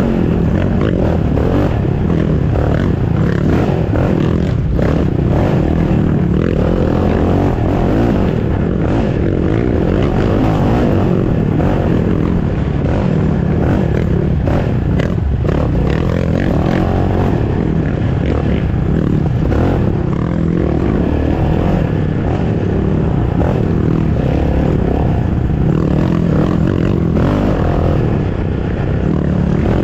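Onboard sound of a racing sport ATV's engine running hard under throttle on a rough dirt trail, with rattles and knocks from the machine bouncing over the ground.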